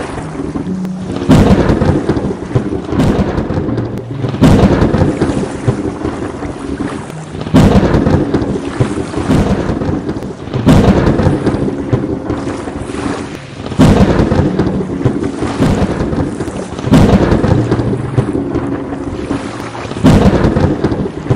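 Thunderstorm with steady rain and sharp thunderclaps that come about every three seconds, each fading into a rumble before the next.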